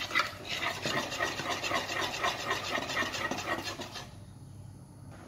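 A metal fork beating cake batter in a glass mixing bowl, with quick, even scraping strokes several times a second. The strokes stop about four seconds in.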